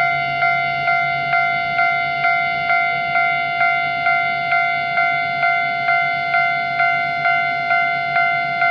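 Japanese railway level crossing's electronic warning bell ringing, a clanging tone struck a bit over twice a second, the signal that a train is approaching.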